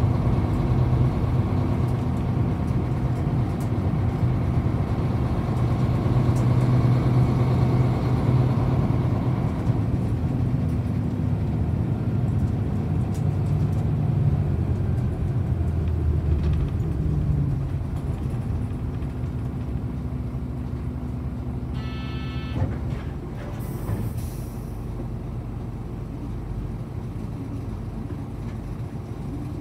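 Running sound of a 1998 Hino Blue Ribbon KC-HU3KMCA city bus: its diesel engine pulls hard for about ten seconds, then eases off as the bus slows. About 22 seconds in a short tone sounds, and soon after comes a brief hiss of air.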